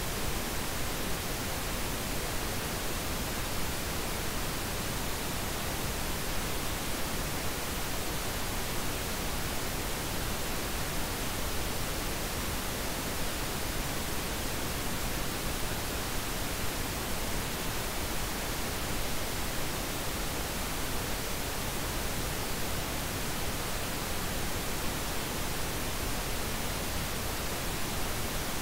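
Steady, unchanging pink-noise hiss, even across all pitches like static, with no tones or events in it.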